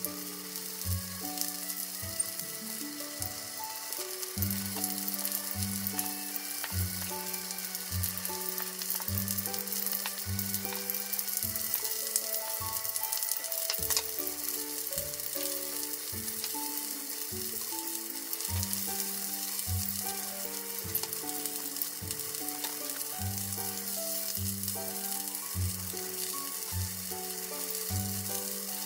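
Zucchini-topped ground-meat patties sizzling steadily in oil in a frying pan, with background music playing over the frying.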